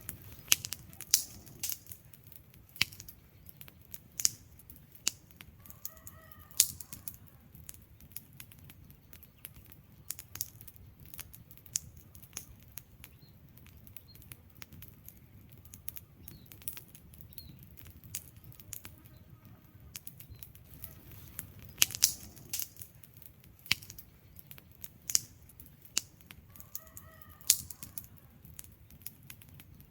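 Wood fire crackling, with sharp irregular pops and snaps over a low steady rush of burning. A faint brief whistle-like tone comes about six seconds in and again near the end.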